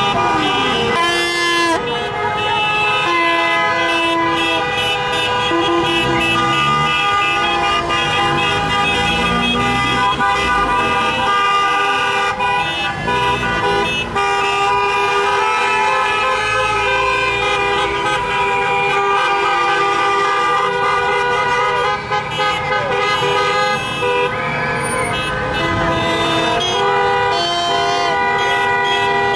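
Many car horns honking at once in celebration, long overlapping blasts of different pitches that run on without a break, over passing traffic.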